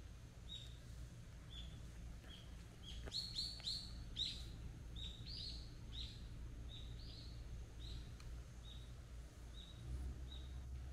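A small bird chirping repeatedly in short high notes, about one or two a second, with a quicker, louder run of chirps a few seconds in.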